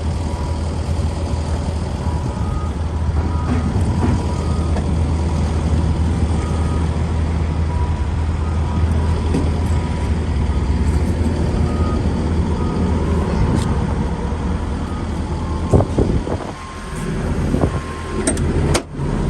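Hitachi ZX135US-3 excavator's diesel engine idling steadily, with faint short beeps now and then. A few knocks near the end.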